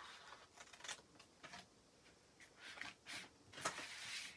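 Faint scissors snipping through a stencil transfer sheet in several short cuts, with papery rustling as the sheet is slid across the board; the loudest snip comes just past halfway.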